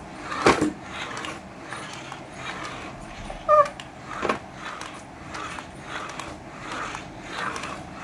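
Handling noise from a plastic toy RC steering-wheel remote: a few light knocks and clicks as it is held and turned, with one short chirp about three and a half seconds in.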